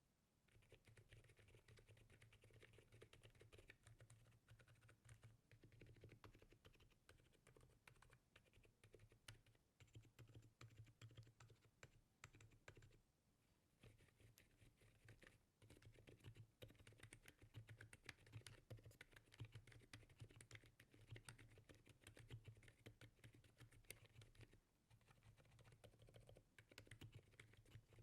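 Typing on a full-size Monsgeek M5 QMK mechanical keyboard built for silence: lubed Akko Fairy Silent switches, FL CMMK V3 stabilizers and foam dampening. The keystrokes are faint and muted, in a steady run broken by a few brief pauses.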